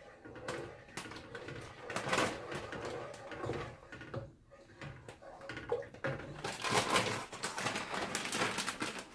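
Wooden spoon knocking and scraping in a pot while stirring a thick cheese sauce, then a plastic bag of shredded cheddar crinkling from about two-thirds of the way in, the loudest part.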